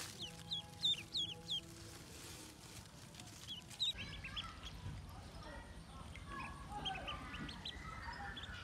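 A brood of domestic ducklings peeping: short, high peeps, a few loud ones in the first two seconds, then from about halfway through a busier chorus of many overlapping peeps.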